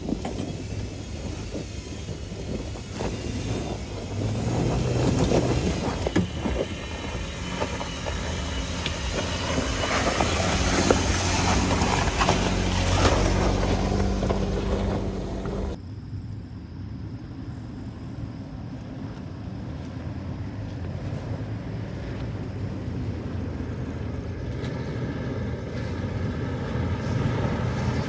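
Jeep Wrangler engine pulling under load as it crawls over rocks, its revs rising and falling, with stones crunching and clicking under the tyres. About halfway through it cuts abruptly to a quieter, steadier engine sound of a Toyota Land Cruiser creeping up the same rocky slope.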